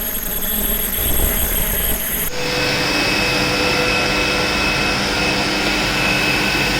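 Ultrasonic plastic welding machine running a weld cycle on a polypropylene box: a high-pitched whine over a low rumble for about two seconds, cutting off abruptly. After it, a steady machine hum.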